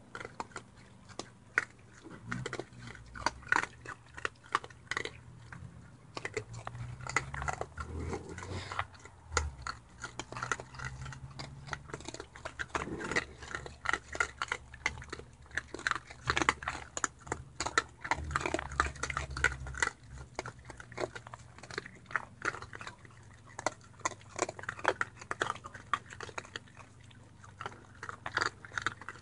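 Raccoons crunching and chewing dry pet-food kibble close to the microphone: a dense, irregular run of crisp crunches and clicks. A low steady hum sits underneath for the first two-thirds.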